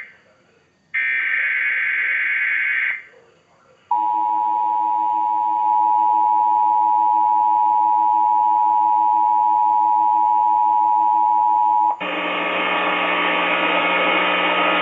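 NOAA Weather Radio EAS activation for a tornado warning. The warbling SAME header data bursts end, separated by a second of silence, then the steady single-pitch 1050 Hz warning alert tone sounds for about eight seconds. It cuts off suddenly into hissy, humming radio noise as the broadcast returns.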